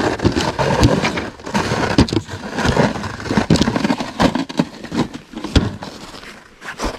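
Irregular scraping and knocking with many sharp clicks, easing off near the end.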